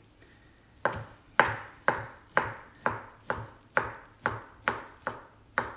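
Knife chopping through cooked rotisserie chicken breast onto a cutting board, dicing it: about eleven evenly spaced chops, roughly two a second, starting a little under a second in.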